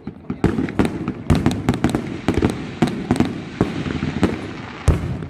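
Aerial fireworks going off: a rapid, irregular string of sharp bangs and cracks over a continuous low rumble, with one especially loud bang near the end.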